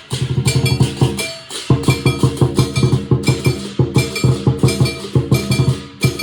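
Lion dance drumming: a Chinese drum beaten in rapid strokes, several a second, with clashing cymbals ringing over it. The rolls come in phrases broken by short pauses.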